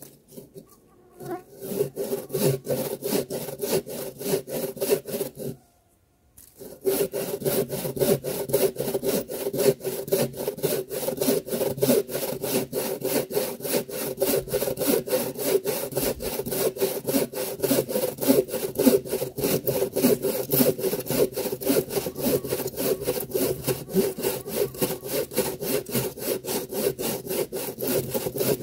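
Silky Gomtaro hand saw cutting through a fallen log in quick, even back-and-forth strokes. The strokes stop for about a second, about five seconds in, then carry on steadily.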